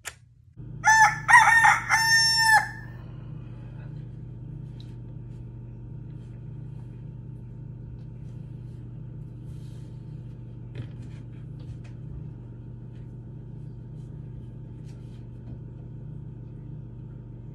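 A rooster crows once, a loud call about two seconds long near the start, followed by a steady low hum.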